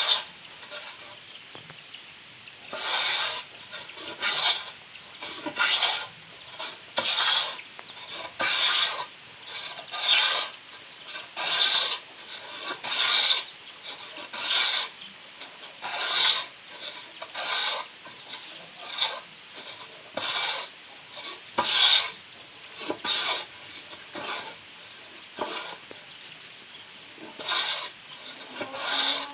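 Manual hand plane shaving wood in steady, even strokes, about one every one and a half seconds, each a short scraping swish of the blade across the board.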